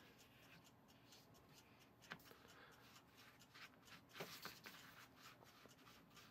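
Faint scraping of a small rubber spatula working crumbly cookie dough in a mixing bowl, with a few soft ticks about two and four seconds in.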